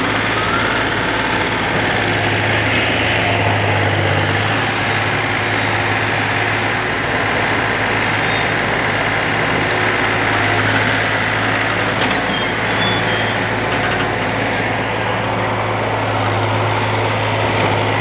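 Diesel engine of a PC20 mini excavator running steadily, a constant low hum that holds level without a break.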